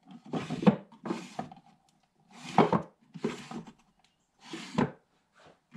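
Small wooden drawer and its loose inserts in a wooden machinist tool chest being handled: short bursts of wooden knocks and scraping, about five of them with pauses between.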